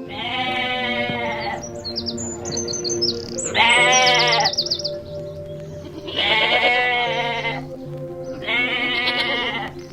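A goat bleating four times, each bleat long and wavering, over soft background music.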